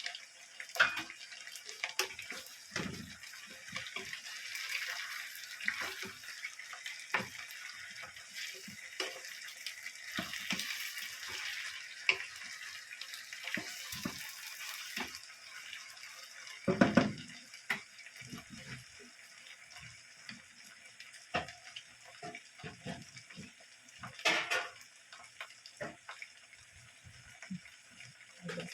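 Tap water running into a kitchen sink with clinks and knocks of dishes and utensils. The water stops about halfway through, and the scattered knocks and clatter go on.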